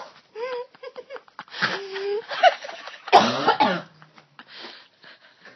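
A woman coughing repeatedly, her throat irritated by a mouthful of dry ground cinnamon. There are several short coughs, and the loudest, hardest one comes about three seconds in.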